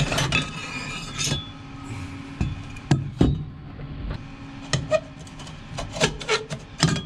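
Metal-on-metal scraping, rubbing and knocking as an electric power steering unit is worked and forced onto the steering column. It binds on a ring that still has burrs on it. There are irregular scrapes and several sharp knocks.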